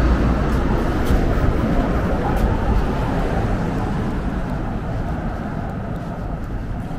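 Road traffic on a busy city avenue: a steady rumble of vehicles, the loudest of them passing close and slowly fading away.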